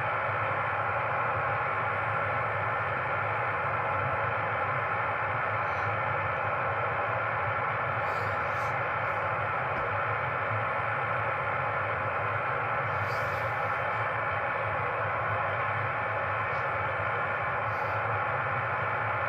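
Ham radio receiver hissing with band noise through its speaker: a steady hiss in the voice range, with a low hum underneath and no clear signal above the noise.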